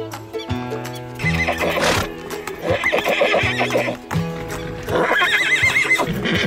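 Horse whinnying twice in long quavering calls, the second about five seconds in, over background music.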